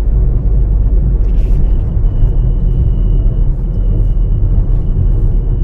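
Inside a moving Proton Gen-2's cabin: a steady low rumble of road and engine noise, with a thin, high, steady whistle that comes in about two seconds in and holds, dropping out briefly once. The whistle's source in the car is unknown to the owner.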